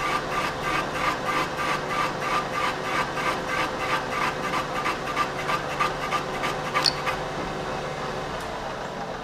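Machine tool running a boring cut to open out the Jaguar 3.8 engine's front oil seal bore, with a regular ticking of about four to five a second as the cutter goes round. A sharp click comes about 7 seconds in, and after it the ticking stops and the machine runs on smoothly as the cut finishes.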